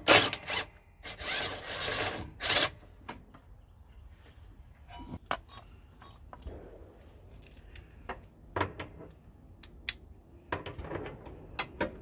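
Hand work on the mower's steering bell-crank shaft: rubbing and rustling of hands and clothing against the frame in the first couple of seconds, then scattered light metallic clicks and taps from a hand tool on the shaft, coming thick and fast near the end.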